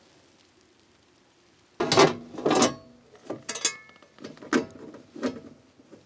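Near silence, then about two seconds in plucked guitar music begins: single notes and chords struck every half second or so, each ringing on briefly.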